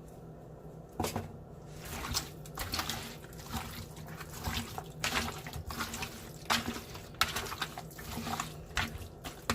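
Irregular wet squishing and splashing as hands work raw chicken coated in wet seasoning.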